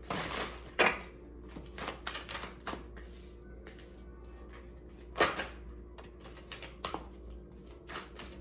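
A deck of tarot cards being shuffled by hand: a run of quick card flicks and clicks, with louder snaps of the deck just after the start, about a second in, and around five and seven seconds in.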